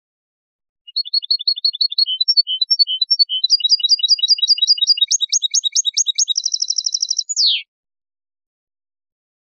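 Recorded European goldfinch (jilguero) song in the Málaga style, a tutor phrase for teaching young goldfinches and goldfinch–canary mules. A run of repeated high notes starts about a second in, quickens into a fast trill and ends on a short falling note.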